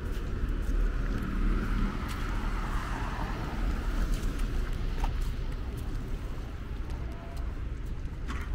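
City street traffic: a car passing on wet pavement, its tyre hiss swelling and fading in the first few seconds, over a steady low rumble.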